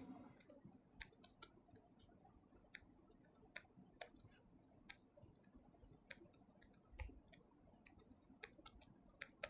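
Near silence broken by faint, irregular clicks of a pen tapping on the writing surface as notes are written.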